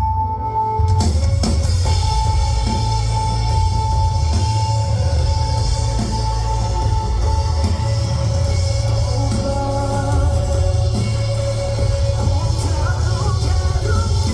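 Background music: a rock-style track with drum kit and guitar at a steady level.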